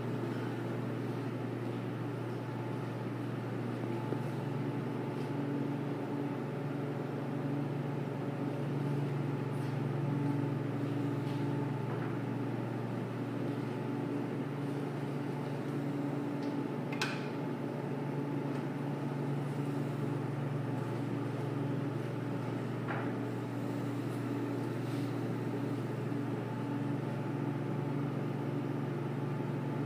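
Steady machinery hum in a room, holding a low pitch and a higher one. A few faint clicks of metal parts being handled on a meat bandsaw are heard, the sharpest about two-thirds of the way through.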